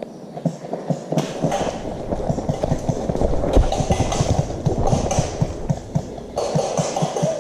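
Footsteps of a person moving quickly on foot, a steady run of low thuds about three to four a second, over a constant rustle.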